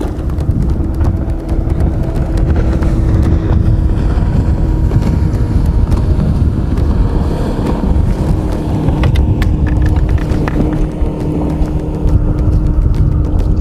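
Wind buffeting the microphone in a heavy low rumble over open water, with a faint steady motor hum underneath.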